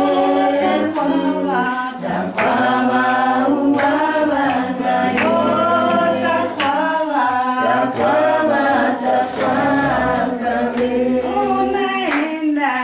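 A choir singing a song in several-part harmony.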